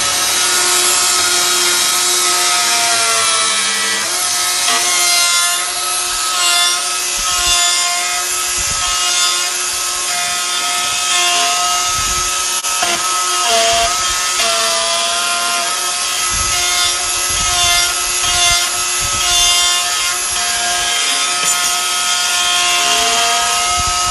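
DeWalt plunge router running at full speed and cutting a concealed-hinge mortise in a wooden door jamb: a steady high motor whine over the hiss of the bit chewing wood, the pitch sagging briefly a couple of times as the cut loads it. A few low thumps come through as the router is handled.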